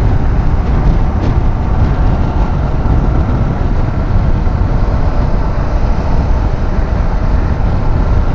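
Zontes T310 motorcycle riding at road speed: steady wind buffeting on the microphone over the hum of its single-cylinder engine.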